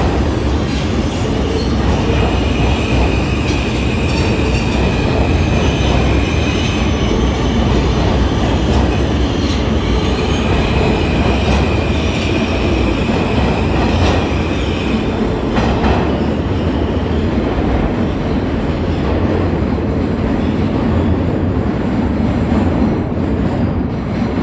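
New York City subway F train running at speed through a tunnel, heard from inside the car: a loud steady rumble of wheels on rail, with a high thin wheel squeal that comes in twice, for a few seconds each time.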